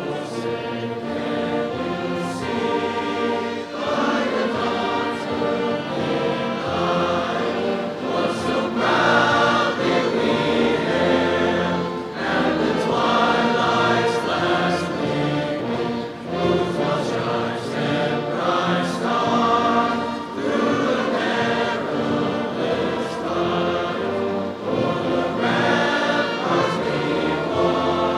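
High school choir of senior performing-arts students singing in several-part harmony, with long held notes sung in phrases.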